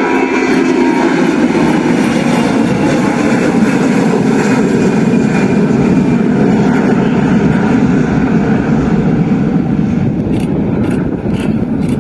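Airbus A320 jet airliner on its takeoff run, its two jet engines at takeoff thrust making a loud, steady rushing noise; a high whine fades out about a second in. Wind buffets the microphone near the end.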